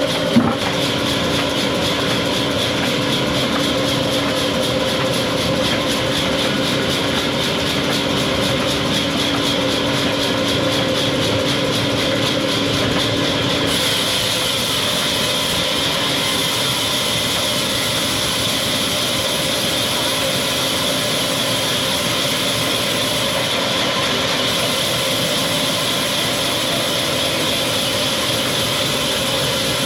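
Sawmill machinery running with a steady mechanical whine. A brief knock comes just after the start, and the mix of tones changes about halfway through.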